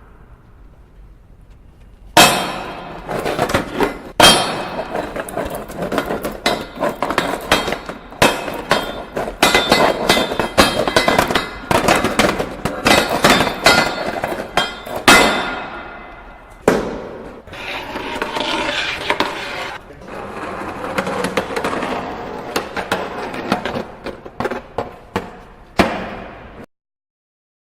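Skateboard banging against and scraping along a metal railing in a reverberant room: repeated sharp metallic hits that ring and echo, with longer grinding scrapes in the second half. The first hit comes about two seconds in, and the sound cuts off suddenly shortly before the end.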